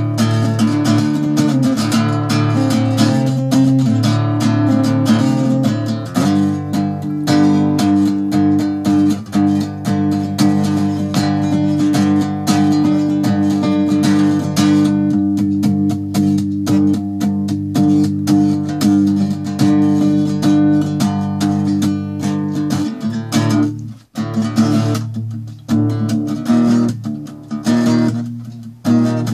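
Steel-string acoustic guitar strummed in a steady rhythm of chords, briefly breaking off near the end before picking up again.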